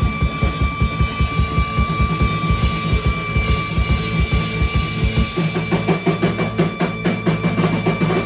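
Live instrumental band playing on drum kit and keyboard, with a fast, even kick-drum pulse. About five seconds in, the drums change to quick rolling hits over a held low note, and a steady high tone sounds above throughout.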